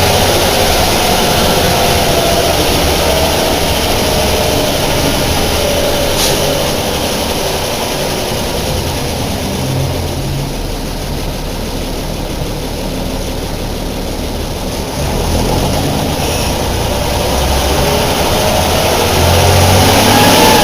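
Deutz BF6L 913 C air-cooled turbodiesel of a bus running: the revs fall away over the first few seconds and stay low and quieter through the middle, then climb again near the end with a rising whine. A single sharp knock about six seconds in.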